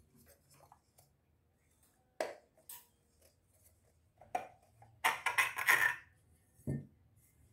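Metal chandelier parts clinking and rattling as they are handled: a few sharp clinks, then about a second of loud metallic rattling as the round metal canopy plate comes loose, and a dull thump near the end.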